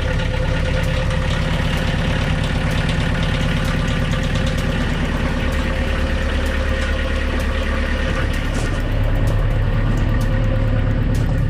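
Excavator's diesel engine running steadily at idle just after starting up. Its note shifts and gets a little louder about eight and a half seconds in.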